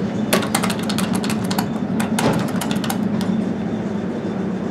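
Westinghouse hydraulic elevator car running with a steady low hum, with a quick run of sharp clicks and rattles through the first three seconds as the car nears its floor to level.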